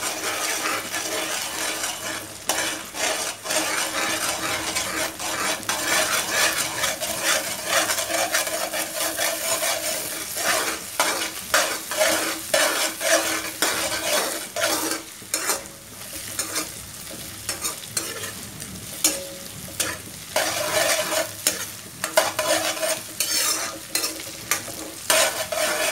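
Egg and potato frying in a wok, sizzling steadily, while a metal spatula stirs and scrambles them, scraping and clacking against the pan in irregular strokes.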